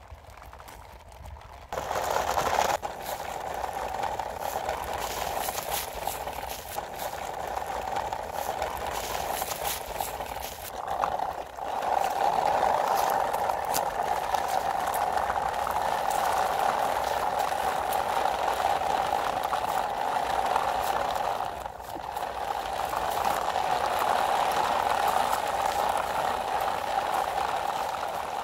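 Plastic toy trucks hitched in a line rolling over rough concrete paving: a steady rolling noise of hard plastic wheels, with the loose plastic figures in their tipper beds shaking. It starts about two seconds in and eases briefly twice.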